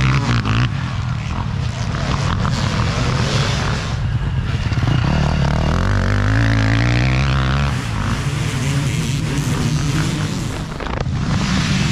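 Off-road dirt bike engines revving hard as a pack of motorcycles accelerates away from a race start. About five seconds in, one bike passes close, its engine pitch climbing steeply as it accelerates before dropping away near eight seconds, and the engines then fade into the distance.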